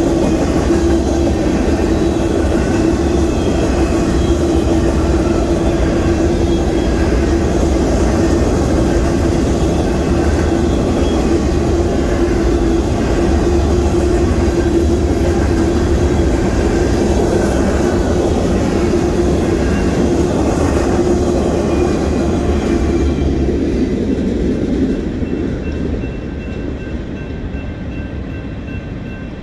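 Union Pacific freight train rolling through a grade crossing: a steady, loud rumble of freight cars on the rails with a steady hum running through it. Near the end the noise falls away as the last cars clear the crossing.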